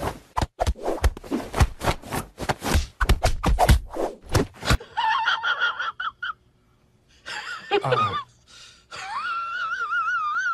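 A hand rapidly patting a cat's belly: a loud, irregular run of quick pats, several a second, that stops abruptly about halfway through. After that come high, wavering, voice-like cries with gaps between them.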